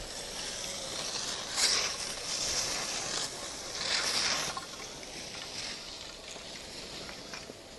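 Skis hissing and scraping over packed snow, with two louder scrapes about one and a half and four seconds in.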